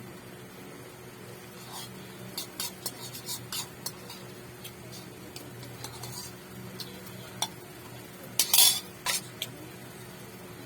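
Eating utensils clicking and scraping against a dish during a meal: a quick run of light clinks, a few scattered taps, then one louder, longer scrape about three-quarters of the way in, over a steady low hum.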